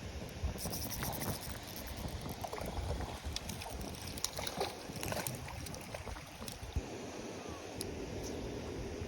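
Wind buffeting the microphone in an uneven low rumble that dies away about seven seconds in, with scattered light clicks and ticks through the first half.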